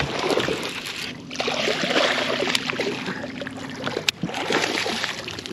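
Water splashing and sloshing as a hooked bass is fought at the surface beside a small boat, with irregular clicks and knocks. A steady low hum runs for a couple of seconds mid-way.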